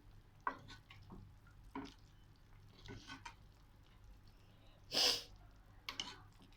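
Light clicks and knocks in the kitchen, with one short, loud hissing burst about five seconds in.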